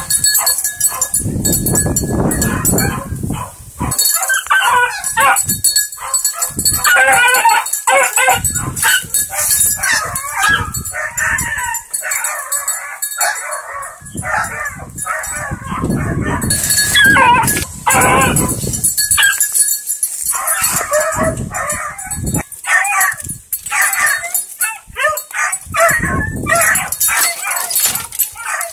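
A 15-week-old hound puppy yelping and baying over and over while chasing a rabbit, in quick runs of short calls with brief pauses between them.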